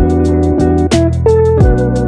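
Background music with a steady beat: deep kick drums that drop in pitch, a regular hi-hat tick, and a sharp snare-like hit about a second in, under held notes.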